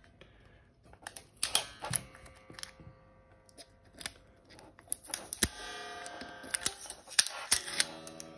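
Unplugged electric guitar: fingers picking at and touching the strings over the bridge pickup. This gives a run of sharp, uneven clicks, with short stretches of faint ringing from the unamplified strings.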